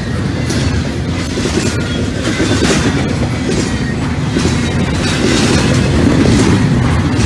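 Double-stack intermodal freight train cars rolling past close by: a steady, heavy rumble of steel wheels on rail, with scattered sharp clicks and clanks.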